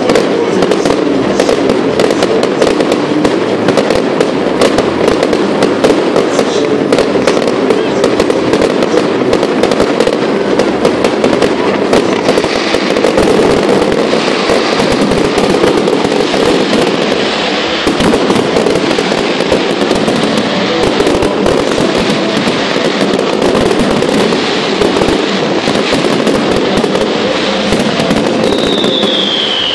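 Fireworks display: a dense, nonstop run of bangs and crackling from aerial shells and ground fountains, loud throughout. A falling whistle comes near the end.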